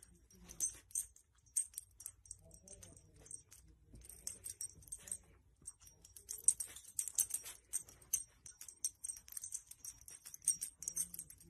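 Light, irregular metallic jingling from a small dog's collar as the dog moves about, pushing a blanket over a sleeping baby, with soft blanket rustling underneath.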